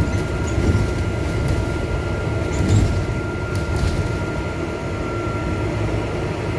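Inside an Alexander Dennis Enviro400 diesel double-decker bus on the move: a steady low rumble of engine and road noise, with a thin steady high whine and a few light rattles about halfway through.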